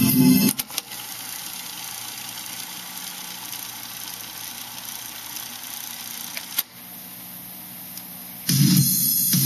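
Cassette deck of a Soundesign 4689 boombox: the playing song cuts off as a transport key is pressed, and the tape mechanism runs with a steady motor hum and tape hiss. A sharp mechanism click comes about six and a half seconds in, the hiss then goes on a little quieter, and music from the tape starts again near the end.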